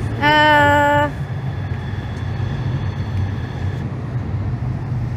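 Steady low rumble of traffic or a vehicle. Near the start, a loud held pitched tone sounds for just under a second.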